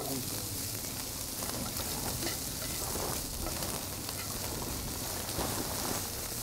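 Stir-fry vegetables sizzling in a frying pan over an open fire as they are stirred: a steady hiss with faint scattered ticks.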